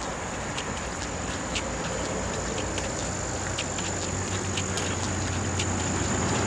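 Insects trilling steadily at a high pitch, with short ticks about twice a second in step with walking footsteps and a low traffic rumble growing near the end.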